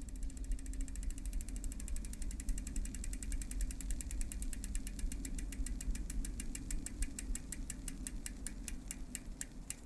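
Rapid, even clicking like a ratchet that gradually slows, over a steady low hum.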